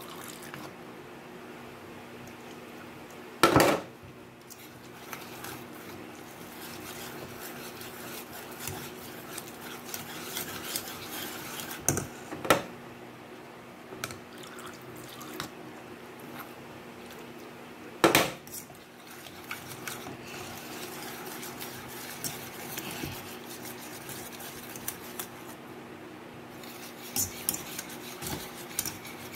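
Wire whisk stirring a thick flour-and-water batter in a bowl, scraping and clinking against its sides. Two loud knocks of the whisk on the bowl come a few seconds in and around the middle, and quick tapping strokes start near the end.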